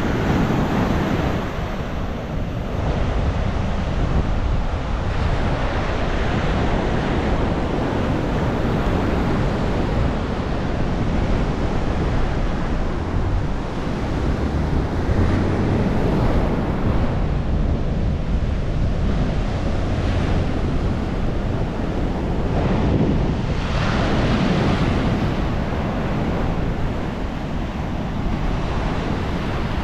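Sea surf breaking on the beach under strong wind, with heavy wind buffeting the microphone. The surf swells louder about halfway through and again a little later.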